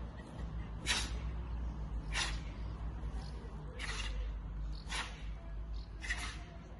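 Sharp, hissing breaths forced out by Taekwon-Do practitioners as they perform a pattern, one short burst with each technique, five times, about a second or so apart.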